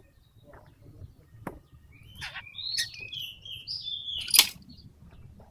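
Oriental magpie-robin calling: a run of short chirping and warbling notes starting about two seconds in. Two sharp clicks, one about a second and a half in and a louder one near the four-second mark.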